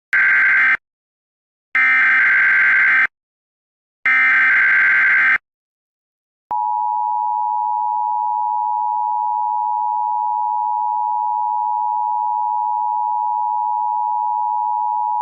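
Emergency Alert System tones: three bursts of SAME header data, each a little over a second long. About six seconds in, the steady two-tone attention signal starts and holds.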